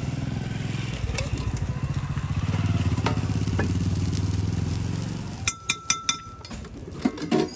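A vehicle engine running nearby, a steady low hum for the first five seconds or so. Then a quick series of sharp metal clinks and scrapes as a steel spatula strikes a dosa being spread on the iron griddle.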